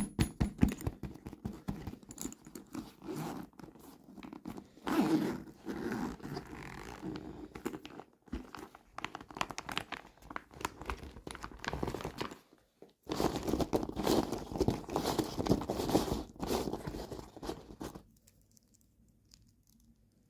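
Plastic toy packaging being handled by hand, crinkling and tearing in bouts, with a run of quick clicks at the start. It stops shortly before the end.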